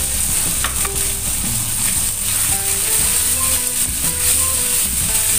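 Chicken pieces sizzling in hot oil with garlic, shallot and ginger in a stainless-steel wok, stirred with a spatula, over background music.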